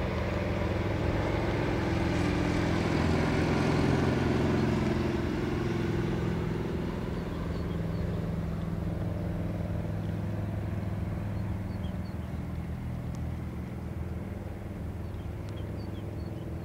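NBE V100 diesel-hydraulic locomotive running light, its diesel engine droning steadily; loudest a few seconds in, then slowly fading as it moves away.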